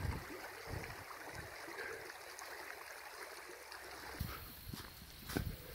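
Faint flow of a creek, a steady low watery hiss, with a few short low thumps near the end.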